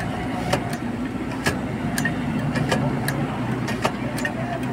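Hand-lever potato fry cutter being worked, sharp irregular clicks as potatoes are pressed through its blades and the cut sticks drop into a steel bowl, over a steady low engine hum.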